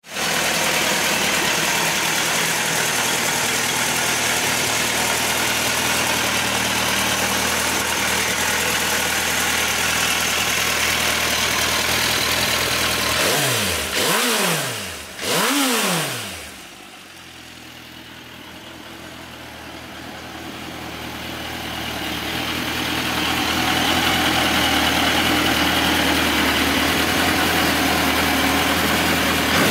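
Suzuki GSX1250F's inline-four engine idling steadily through an aftermarket carbon-fibre silencer. About halfway through it is blipped twice, each rev rising and falling in pitch. The sound then drops back for a few seconds and slowly swells to a steady idle again.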